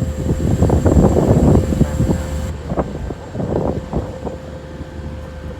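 Engine running with a steady hum, under gusts of wind buffeting the microphone that are strongest in the first two seconds.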